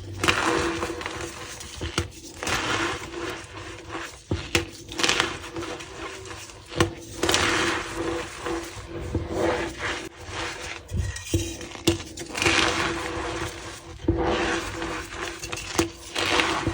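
Reformed gym chalk blocks crunching and crumbling as they are broken apart, with a squeaky sound and irregular sharp cracks.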